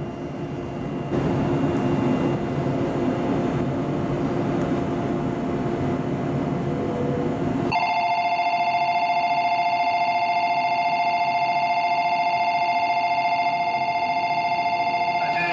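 A station platform departure bell starts ringing about halfway through and keeps up a steady, fast-fluttering ring. Before it there is only steady station noise.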